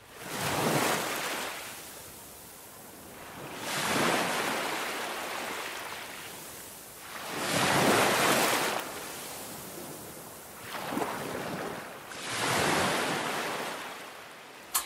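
Ocean waves washing in and drawing back, each swell of surf rising and fading in a slow rhythm about every three to four seconds.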